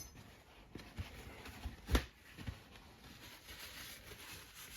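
A few light knocks and clicks, one louder knock about two seconds in, as metal change gears are handled on the lathe's gear train.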